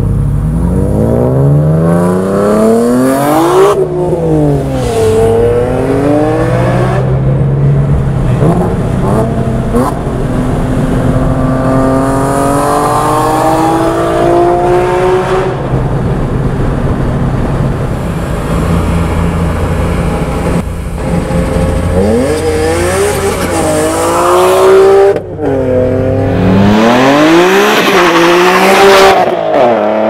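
Supercharged BMW E46 M3's S54 straight-six with a titanium exhaust and headers, accelerating hard. Its revs climb in several long pulls and fall back between them.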